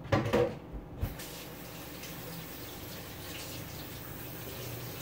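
Kitchen faucet turned on about a second in and running steadily into the sink as hands are washed, after a short clatter and knock.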